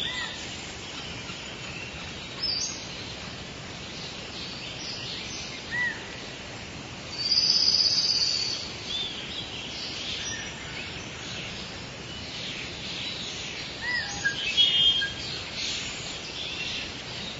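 Rainforest ambience: a steady hiss under scattered bird calls, short high chirps and arched whistles. About seven seconds in, a louder, shrill high trill lasts about a second. Another cluster of chirps comes near the end.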